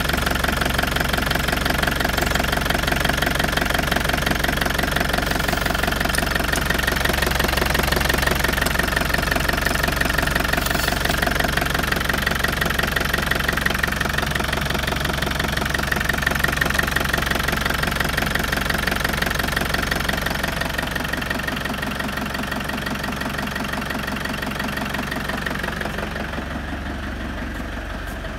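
Fiat Ducato 2.8 turbodiesel (8140.43) four-cylinder engine idling steadily with an even pulse, its oil filler cap off. It gets quieter over the last several seconds.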